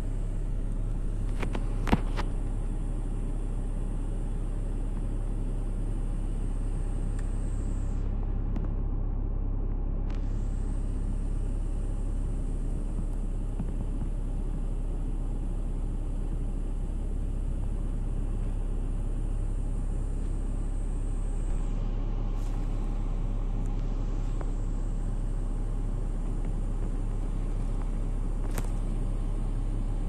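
Steady low rumble, with a few brief clicks about two seconds in and once near the end.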